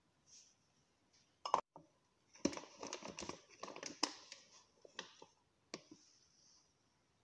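Kitchen handling sounds of a spoon, a plastic bowl and a flour packet in a plastic bag. A sharp knock comes about a second and a half in, then a cluster of clicks, taps and plastic crinkling, and a few single clicks near the end.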